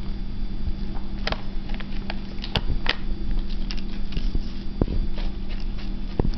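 A cat nosing at and nibbling a potato crisp, making scattered sharp crackles and clicks over a steady low hum.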